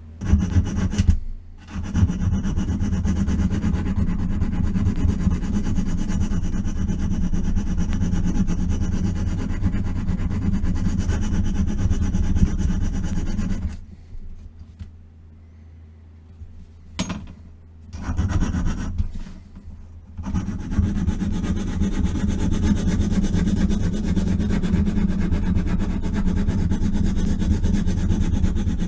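Small hand file rasping against a bare-metal diecast toy car body in continuous strokes, stopping twice briefly about halfway through.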